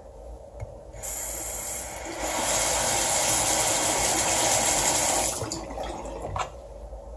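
Bathroom sink tap running: water starts about a second in, gets louder a second later as the flow opens up, and is shut off about five seconds in.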